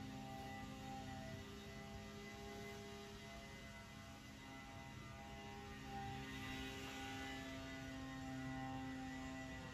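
Quiet background music of long held, droning synth notes that change pitch every second or two over a steady low hum.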